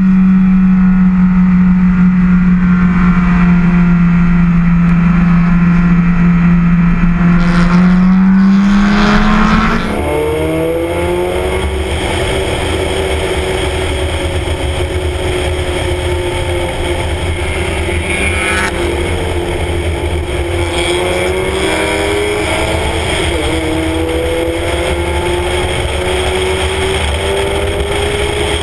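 Spec Miata race car's four-cylinder engine running hard on track. For the first ten seconds it holds a loud, nearly steady note that rises just before an abrupt cut. After the cut the note climbs slowly under wind rush, with a couple of small dips in pitch.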